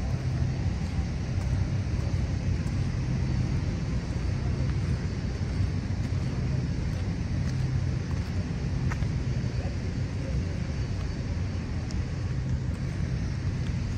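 Road traffic noise beside a wide multi-lane road: a steady low rumble of passing vehicles that swells and eases.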